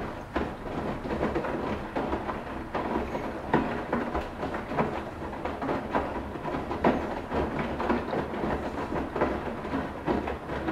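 Washing machine mid-wash, with water and laundry sloshing and knocking in an uneven, continuous churn.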